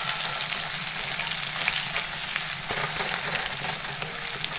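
Sliced onions sizzling steadily as they fry in hot oil in a kadhai, on their way to turning reddish-brown, with a spatula scraping the pan a few times as they are stirred.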